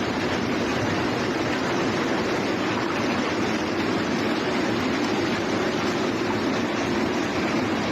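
Heavy storm downpour falling steadily, a dense even rush with no separate impacts standing out.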